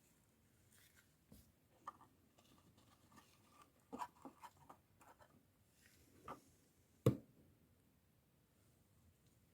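Light clicks and clinks from tools or parts being handled during an oil change, with a single louder knock about seven seconds in.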